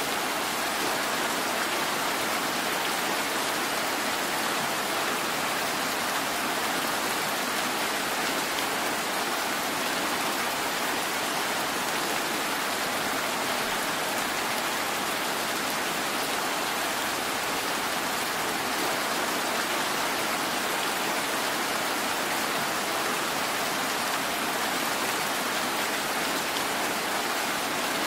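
Heavy rain pouring down onto a wet road, a steady, even hiss that does not let up.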